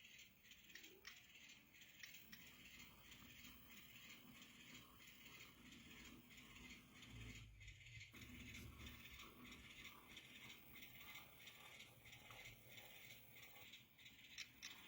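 Faint whir and light rattling of an N-scale model locomotive, an end-cab Baldwin switcher, running slowly along the track, with scattered faint ticks.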